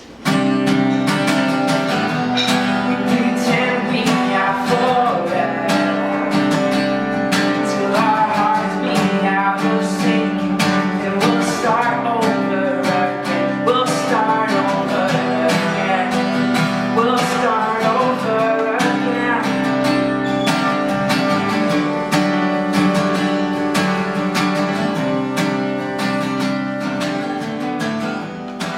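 Acoustic guitar strummed in a steady rhythm, playing an instrumental passage of a pop song after the last sung line.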